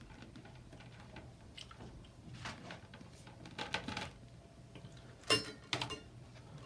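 Small bidet adapter parts being handled at a faucet: scattered light clicks and rustling of hard plastic and metal fittings. The sharpest click comes about five seconds in.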